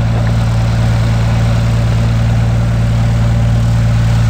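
Cessna 182R Skylane's Continental O-470 six-cylinder engine and propeller running steadily at low taxi power while the plane taxis, with a strong, even low hum.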